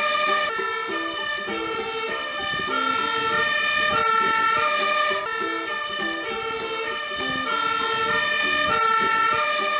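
Fire engine's two-tone siren sounding, alternating steadily between a high and a low note.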